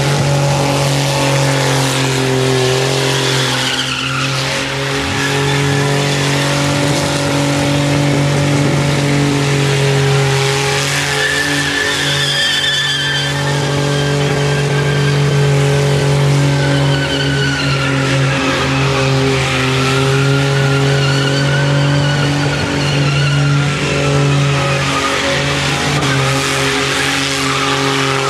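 Holden VN Commodore doing a burnout: the engine is held at steady revs while the spinning rear tyres squeal in a wavering, shifting screech over the engine drone.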